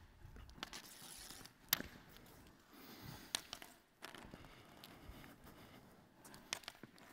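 A few faint clicks and scrapes as coloured hoops are laid down on a tennis court surface.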